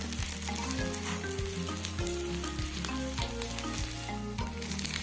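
Fried rice sizzling in a frying pan as it is stirred and turned with a wooden spatula. Background music with a steady, stepping bass line plays underneath.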